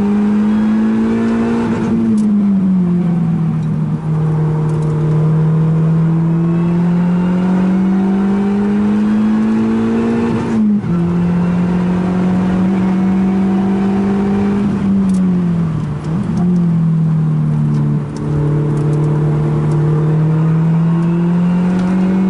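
Lotus sports car's engine heard from inside the cabin while driven hard on a circuit: the revs climb slowly under acceleration, fall back twice as the car slows for corners, and drop abruptly once about halfway through at an upshift.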